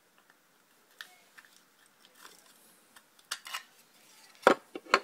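Plastic parts of an Xbox 360 Quick Charge Kit clicking and crunching as the inner part is wiggled out of its casing: scattered small clicks, growing busier in the last two seconds, with the loudest click near the end.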